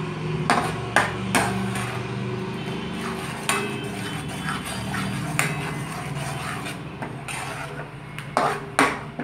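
A slotted metal ladle stirring thick masala gravy in a pan, knocking against the pan's sides about seven times, twice sharply near the end, over a steady low hum.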